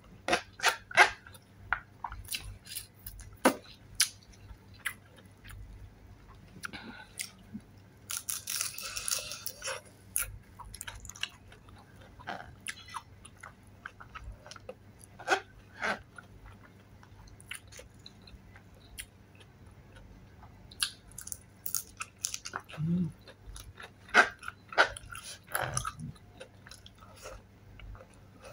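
Close-up mukbang eating sounds: biting, crunching and chewing freshly fried chili spring rolls (dynamite lumpia) with rice. Sharp crisp crunches come and go, with a longer run of crackling crunch about eight seconds in.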